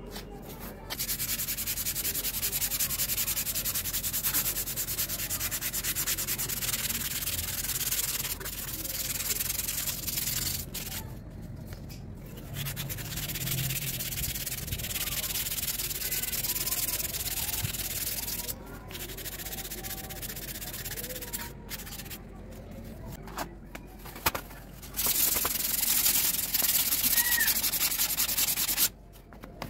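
Sandpaper, a piece cut from a sanding belt, rubbed by hand back and forth over a painted RC plane wing to sand the paint back, making a steady scratchy hiss that breaks off briefly several times.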